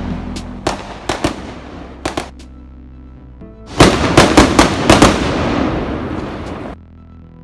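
Fireworks going off: scattered sharp bangs, then about four seconds in a dense volley of bangs and crackling that stops suddenly near the end, all over background music.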